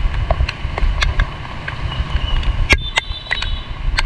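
Wind buffeting the microphone on a moving motorbike in heavy rain: a steady low rumble scattered with sharp, irregular ticks of raindrops striking it. A thin high tone sounds briefly past the middle.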